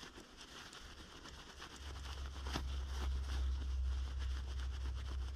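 Thin nylon hammock fabric rustling and crinkling softly as a strap loop is scooted through its sewn channel, over a low steady rumble that swells about two seconds in.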